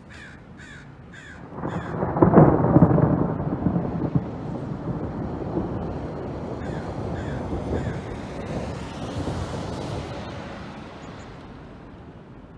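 Thunder: a long rolling rumble that builds about two seconds in, is loudest for a second or so, then rolls on and fades out over about eight seconds. A bird calls in short runs of notes at the start and again about seven seconds in.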